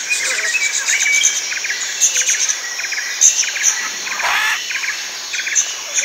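Tropical rainforest chorus of birds and insects: short groups of rapid pulses repeating about twice a second, with high chirps above them and a brief sweeping call about four seconds in.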